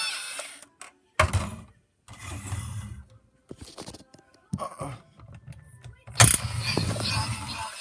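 Handling noise from toys: a few separate knocks and rattles with silent gaps between them, and a sharp, loud knock about six seconds in.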